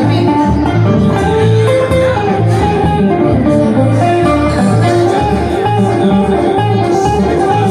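Acoustic guitars and an upright bass playing an instrumental break: picked guitar notes stepping through a melody over strummed chords and a bass line that changes note about twice a second.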